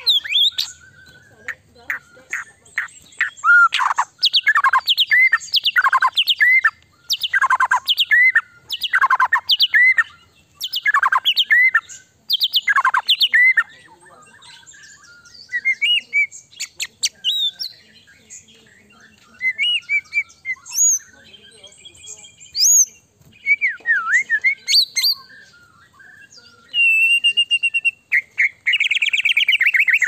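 White-rumped shama (murai batu) singing in full voice: a long run of loud whistles that each slide down in pitch, about two a second, then varied whistles and chatter, and a fast buzzy trill over the last few seconds.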